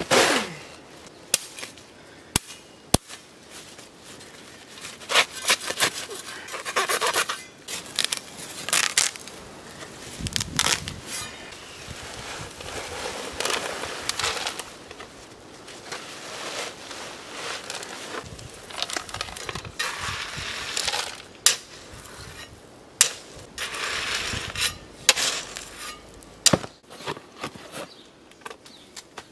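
Sand and grit poured from sacks into a steel wheelbarrow: repeated rushing pours and sack rustling, with many sharp clicks and knocks.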